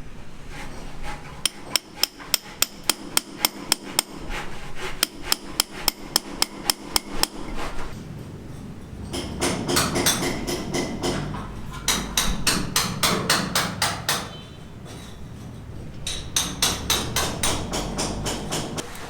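Hammer blows struck in quick, even runs of about three to four a second, stopping and starting again several times.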